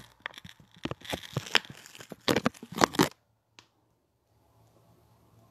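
Fingers handling a phone and rubbing close to its microphone: a run of crackling, scraping bursts for about three seconds, then the sound drops away almost to nothing, with one faint click soon after.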